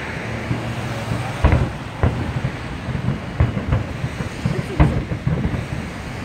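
Fireworks grand finale: a rapid, irregular run of booms and bangs, several a second, the strongest about a second and a half in and again near five seconds.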